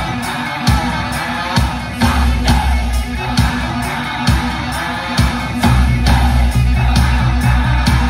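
A song with singing played loudly through a pair of Yamaha DHR15 powered speakers with no subwoofer, picked up by a phone microphone. A drum hit lands a little under once a second, and a heavy bass line comes in about two-thirds of the way through.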